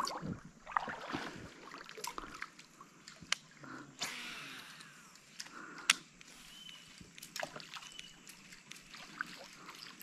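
Water sloshing and trickling against a kayak, with scattered sharp knocks and clicks. The loudest knock comes about six seconds in.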